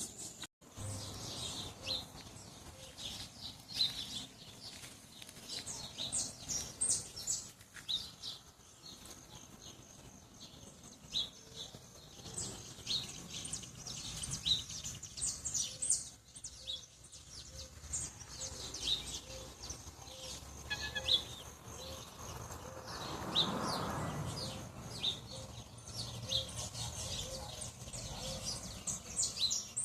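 Many small birds chirping and twittering in quick, short high notes throughout, with a steady high insect-like buzz at the start. A soft low note repeats about once a second through the middle, and a brief rushing swell rises and fades about three quarters of the way through.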